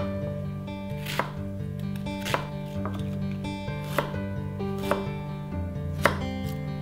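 Chef's knife slicing onion and then ginger on a wooden cutting board, the blade knocking on the board about once a second, over soft background music.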